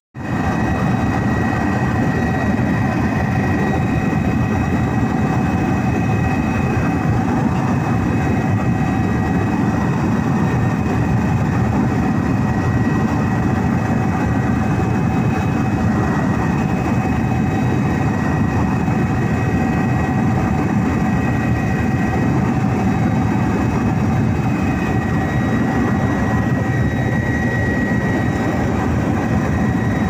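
Aircraft engine running steadily, heard from inside the cabin: a loud, even drone with a few steady whining tones above it.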